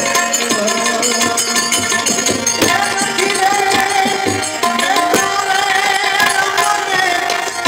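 Indian music with tabla drumming under a sustained melody line, one long note held from about three seconds in to near the end.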